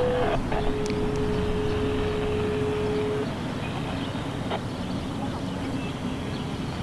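Outdoor warning siren's single steady tone, faint under a constant low rumble, holding one pitch for a few seconds and then cutting off about three seconds in.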